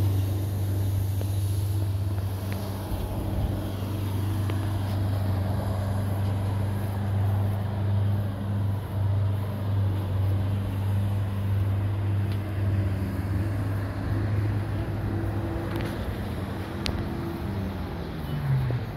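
Diesel engine of a Mack front-loader garbage truck idling steadily with a low, even hum. Its pitch shifts briefly near the end.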